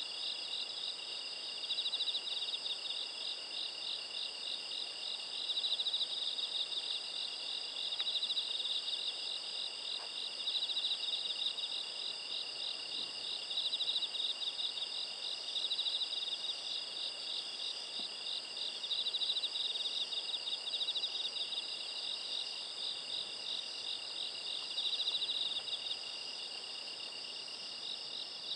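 A chorus of autumn insects, crickets among them, trilling continuously in several high, steady voices, one of them swelling and fading every couple of seconds.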